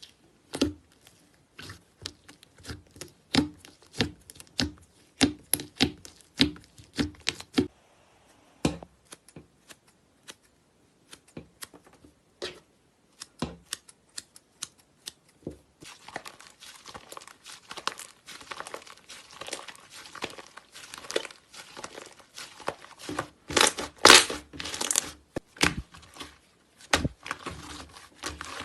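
Slime being squeezed and pressed by hand, giving a run of sharp clicks and pops, then, from about halfway, a denser crackling.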